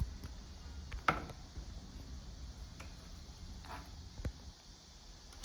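A few scattered light clicks and taps, about five over several seconds, from the folding bike's stem clamp and its metal parts being handled as the clamp is locked back on.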